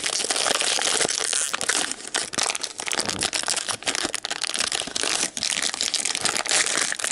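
Crinkly holographic foil wrapper being picked at and torn open by hand: continuous crinkling and crackling made of many sharp little snaps.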